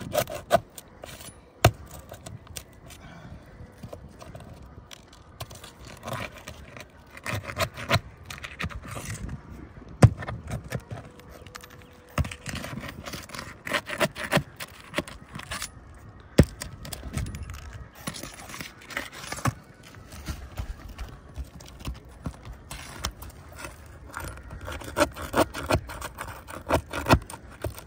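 Steel flat pry bar worked under three-tab asphalt shingles to break their seal and pry at the roofing nails: irregular scraping with sharp metal clicks and knocks.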